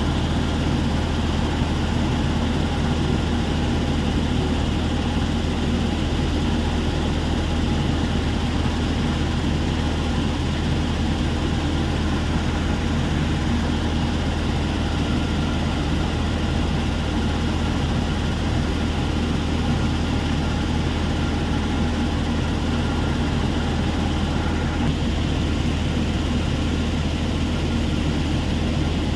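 Heavy machinery running steadily: a constant low drone, with a faint whine over it that stops about 25 seconds in.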